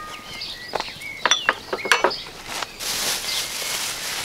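Cast-iron camp oven cooking over a campfire: a few light metal clinks and short squeaks in the first two seconds, then a steady hiss from about three seconds in as the pot steams.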